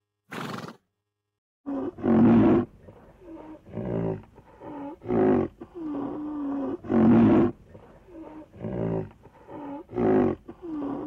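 A large animal giving a regular series of deep roaring grunts, roughly one every second or so, alternating louder and softer, each with a low pitched note; one short call comes first and the series starts about two seconds in.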